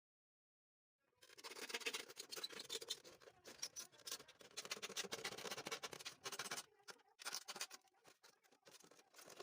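Plastic bottle being cut and handled: dense scratchy crackling with many small clicks, starting about a second in and thinning to scattered separate clicks near the end.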